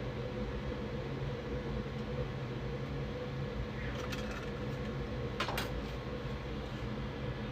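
Bambu Lab A1 Mini 3D printer running mid-print, a steady mechanical hum with faint motor tones, broken by two short clicks about four and five and a half seconds in.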